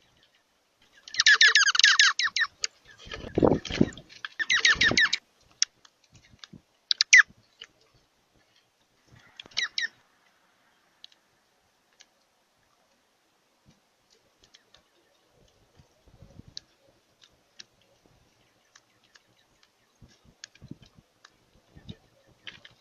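Birds calling in loud bursts of rapid, harsh repeated notes, strongest in the first five seconds with shorter bursts around seven and ten seconds, along with low thumps; after that only scattered faint ticks.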